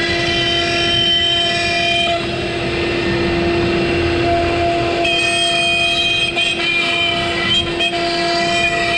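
CNC router spindle running at a steady high whine while its thin bit cuts a profile through a softwood board, the cutting tone shifting slightly as the bit moves along the path.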